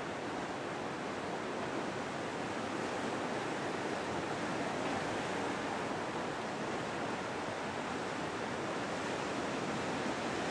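Sea surf washing and breaking in a steady rushing hiss, with slight swells in level and no distinct single crash.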